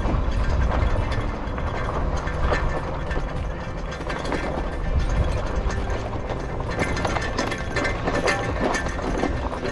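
E-bike being ridden over a rough dirt trail: the bike clicks and rattles over the bumps, over a steady low rumble.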